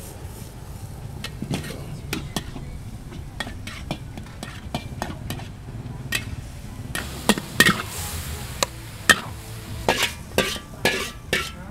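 Metal spatula scraping and clanking against a wok as minced pork and holy basil are stir-fried, with a sizzle underneath. The clanks come thick and fast, louder from about seven seconds in as the wok is tipped and the food scraped out.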